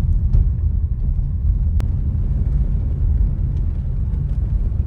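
A car driving along a road, heard from inside the cabin: a steady low rumble of engine and tyres, with a single click about two seconds in.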